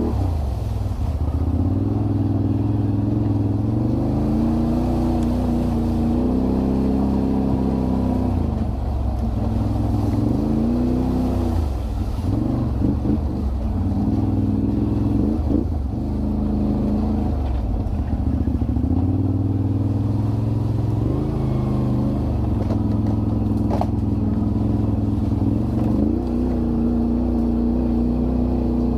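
Can-Am Renegade 1000 ATV's V-twin engine running under way, its pitch rising and falling over and over as the throttle is opened and eased off.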